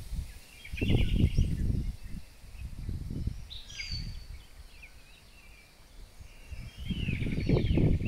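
Wind buffeting the microphone in uneven gusts, loudest about a second in and again near the end, with birds chirping and calling several times.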